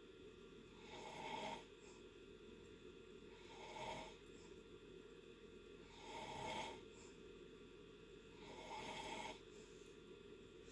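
A person snoring in deep sleep: four faint snores about two and a half seconds apart, each swelling and then cutting off sharply.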